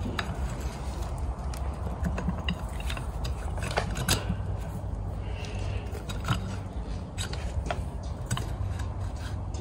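Light metallic clicks and taps as a folding propeller's metal blade and pivot pin are handled and seated on the hub, spaced irregularly over a steady low rumble.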